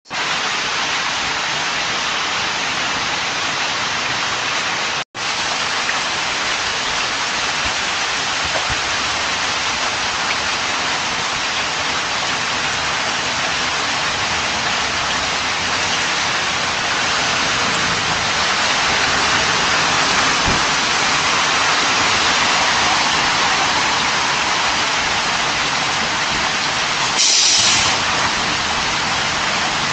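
Heavy rain falling steadily, heard through a doorbell camera's microphone. The sound drops out for an instant about five seconds in, and near the end a school bus's air brakes give a short, louder hiss.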